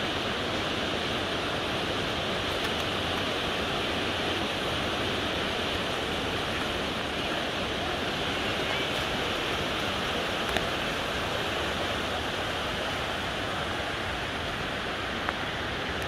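Steady rush of falling water from a waterfall, an even, unbroken roar, with a few faint clicks.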